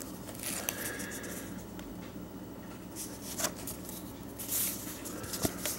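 Paper rustling and rubbing as a 7-inch 45 rpm vinyl single in a white paper sleeve is drawn out of its jacket and handled, in a few brief scrapes.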